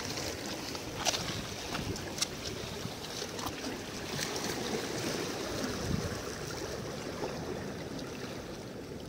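Seawater lapping against a rocky shore, with wind buffeting the microphone, and a couple of sharp clicks about one and two seconds in.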